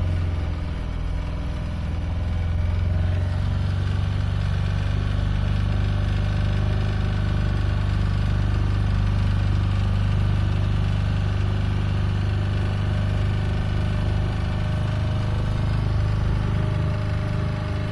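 Motorboat engine running steadily at a constant speed, a low even hum.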